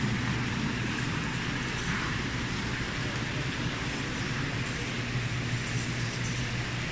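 Steady low machine hum with an even hiss, the background drone of a grocery store's refrigerated cases and live seafood tanks, with a few faint light rustles.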